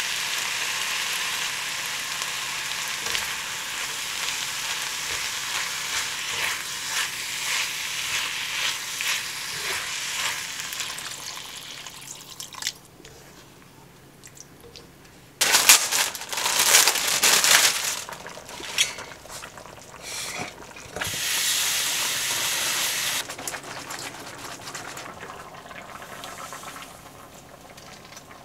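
Minced beef and diced vegetables sizzling in a hot cast-iron pot, stirred and scraped with a wooden spoon. The sizzle fades near the middle; then a sudden loud stretch of hissing and bubbling follows once the broth is in, and the sound settles to a quieter simmer toward the end.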